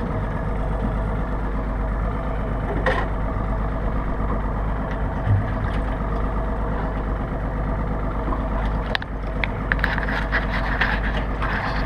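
Boat engine idling with a steady low hum. Light clicks and knocks come in over the last few seconds.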